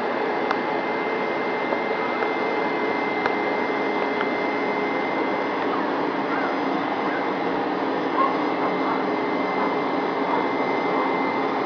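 Hoover Max Extract carpet cleaner running steadily, its suction motor giving an even rush with a steady high whine over it.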